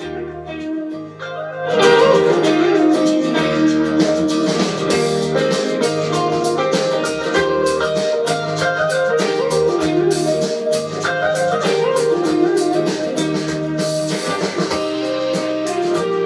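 Guitar-led soft rock playing through a Marshall Stockwell II portable Bluetooth speaker, picked up by the camera microphone in the room. About two seconds in it jumps much louder as the volume is turned up from half toward full.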